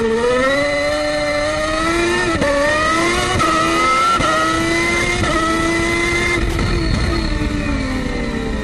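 Formula One car engine at high revs, its pitch climbing with quick breaks between gears, then holding steady and falling away near the end.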